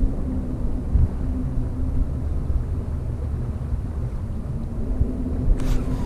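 Wind rumbling on the microphone with a faint, steady motor hum underneath. Shortly before the end, sharp clicks and rustling of gear being handled begin.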